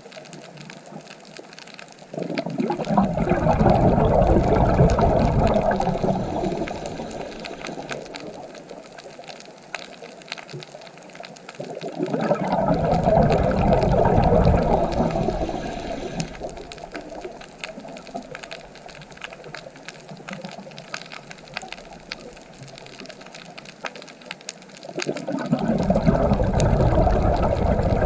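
Ocean waves breaking and washing in: three surges about ten to twelve seconds apart, each rising quickly and fading back to a low hiss, the last one near the end.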